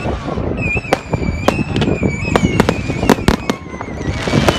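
Fireworks display: a rapid, irregular series of sharp bangs, about a dozen, over a continuous low rumble, with thin whistling tones from the fireworks weaving through.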